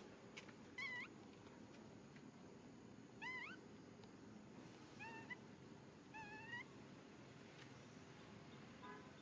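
Baby pigtail macaque crying: a series of faint, short, high cries that rise in pitch, about five of them a second or two apart.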